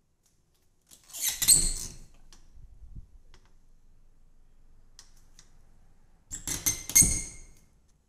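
Double pantry doors with metal lever handles being opened: a quick cluster of latch clicks and rattles about a second in. A second, similar cluster near the end as the doors are shut again.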